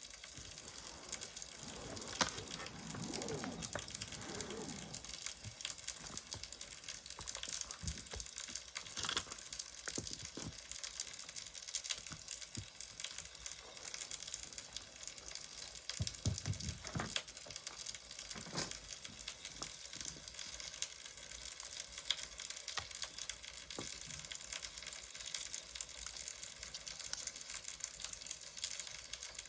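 Wood fire crackling, a steady hiss with scattered snaps and a few louder pops.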